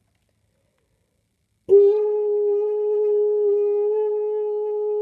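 Toy fire-alarm speaker sounding its continuous tone: one steady, unbroken tone that starts suddenly a little under two seconds in.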